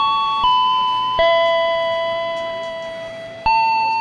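Electronic chime melody from a railway station's public-address system: slow, bell-like notes that each ring and fade, with one lower note held for about two seconds in the middle.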